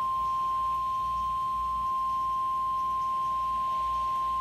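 NOAA Weather Radio 1050 Hz warning alarm tone: a single steady, unbroken high tone, the attention signal that comes before a broadcast emergency alert, here a flash flood statement.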